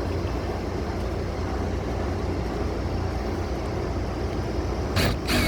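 Steady low rumble. Near the end a screw gun starts up with a loud whine, driving a self-tapping screw into the corrugated metal roof panel to fasten the cap over the rip.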